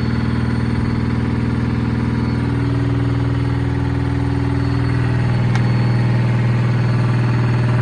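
Sharp ES-FB7145W washing machine running with a loud, steady low hum. A higher tone shifts about two and a half seconds in, and there is a single sharp click a little past halfway. The owner calls these noises horrible.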